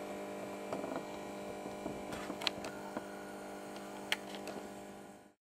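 Steady electrical hum from a lit Westinghouse T8 18-watt fluorescent tube fixture running on 50 Hz mains, with a few faint ticks. The sound cuts off abruptly near the end.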